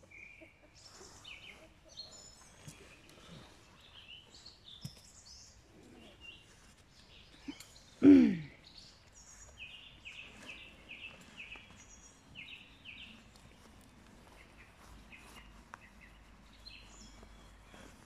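Birds chirping and singing with many short, high calls. About eight seconds in comes one short, loud call that drops in pitch.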